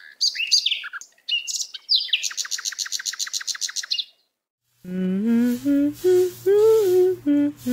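Birds chirping, with a fast, even trill of about ten notes a second in the middle. After a short gap, a woman starts humming a tune about five seconds in.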